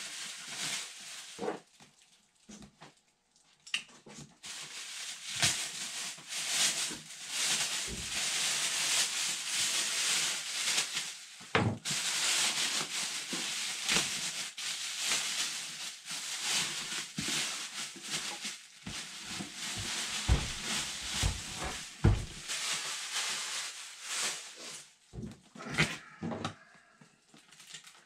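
Clear plastic bag and wrap crinkling and rustling as it is pulled off a resin 3D printer, in long stretches of rustling with a short lull near the start. A few soft knocks come in the second half, most of them together about two-thirds of the way in.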